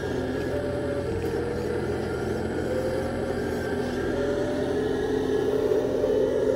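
Radio-controlled scale construction machinery running: a steady mechanical hum with faint whining tones that drift slightly up and down, growing a little louder near the end.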